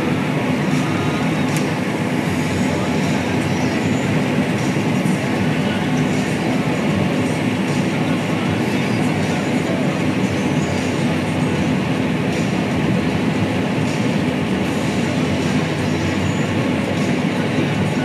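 Combine harvester running steadily under load while harvesting, heard from the machine: a constant mechanical drone and hum with faint light rattling.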